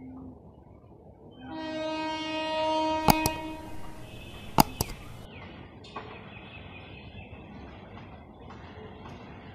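Electric multiple-unit (EMU) suburban train sounding its horn, one long blast of about two and a half seconds, then running on with a steady rumble as it approaches.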